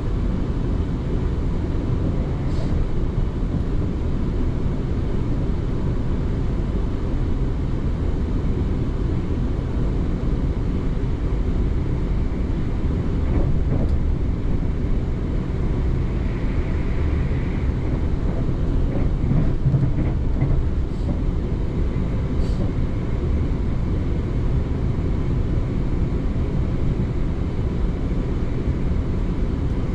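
Passenger train running along the line, heard from inside the carriage: a steady low rumble of wheels on rails, with a brief high squeal about halfway through.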